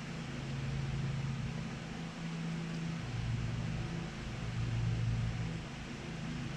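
A steady low mechanical hum over a faint hiss, its pitch wavering slightly every second or two.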